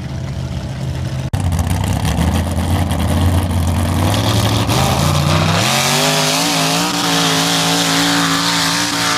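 A lifted mud-bog truck's engine running at low revs, then revving up sharply about halfway through and held at high revs as the truck drives into the mud pit.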